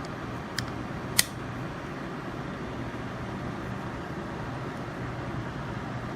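Two short clicks about half a second apart, about a second in, from handling a firearm fitted with a combination trigger lock, over a steady fan-like background hum.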